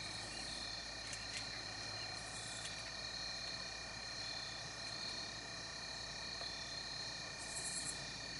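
Outdoor insect chorus: several steady high trills at different pitches, with a short, higher pulsing buzz about two seconds in and again near the end.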